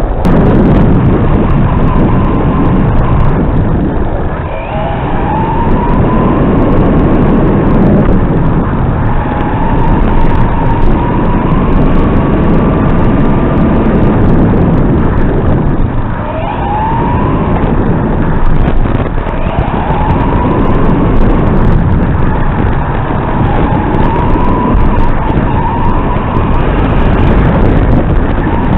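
A Turnigy Trooper Pro RC truck's electric motor whining as it races. The pitch dips sharply twice as it slows and climbs again as it accelerates, over a heavy rumble of tyres and chassis on the onboard microphone.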